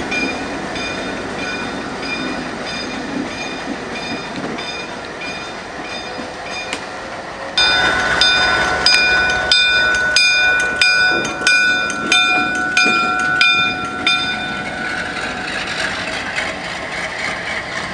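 Alco diesel locomotive rumbling as it rolls slowly, its bell ringing in steady strokes about twice a second. About seven and a half seconds in, the bell turns louder and sharper, with a steady tone over it. The bell stops around 14 s, leaving the engine's rumble.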